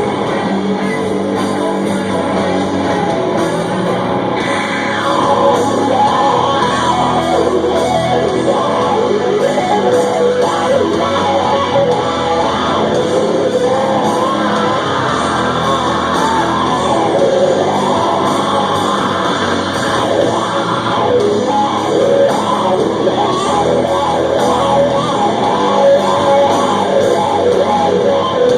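Doom metal band playing live: loud, heavy guitars, with sung and yelled vocals at times.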